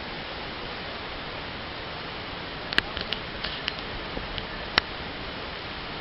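Steady, even rush of flowing river water. A handful of sharp clicks come through it about three to five seconds in.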